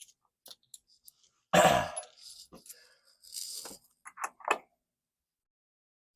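Small metal hardware clinking and jingling as loose bolts and washers are handled and rummaged from a pocket, with rustling and a louder breath-like burst about a second and a half in.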